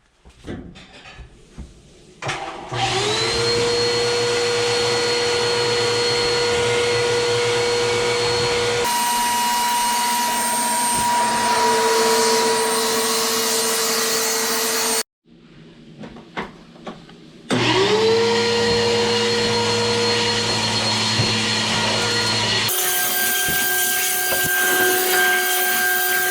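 Bissell PowerForce Helix bagless upright vacuum cleaner switched on, its motor whine rising quickly to a steady pitch and then running steadily with its freshly re-belted brush roll. About halfway through it cuts off suddenly, there are a few knocks, and it starts up again with the same rising whine.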